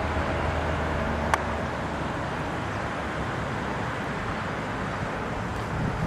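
Steady outdoor background rumble like distant traffic, with a low hum that fades out after about a second and a half and a single sharp click at about a second in.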